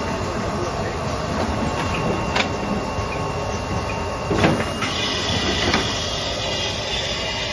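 Automatic rigid box wrapping and folding machine running: a steady mechanical noise with a thin high whine that stops about five seconds in, and a few sharp knocks, the loudest about four and a half seconds in.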